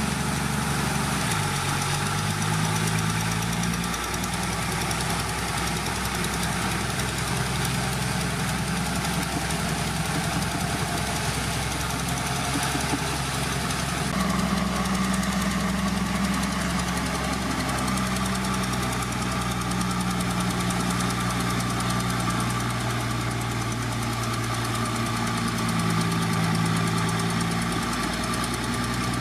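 Heavy diesel engine of earthmoving machinery running under working load, its note shifting down and up several times.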